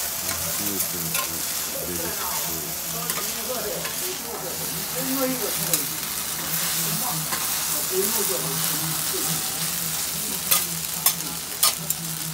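Yaki udon sizzling on a large flat iron griddle while two metal spatulas toss and scrape the noodles across the plate, with a few sharp clacks of the spatulas near the end.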